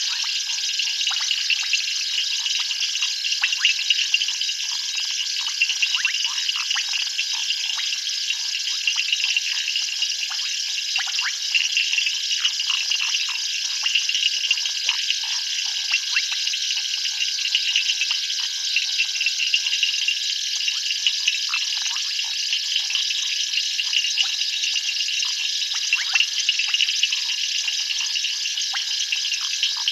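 Night chorus of calling insects and frogs: a steady shrill trilling with dense, quick clicking and plinking calls throughout.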